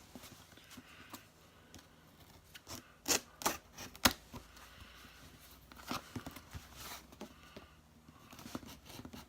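Cardboard shipping box being opened by hand: scattered scrapes, rustles and sharp clicks at the packing. The loudest snaps come about three to four seconds in and again around six to seven seconds.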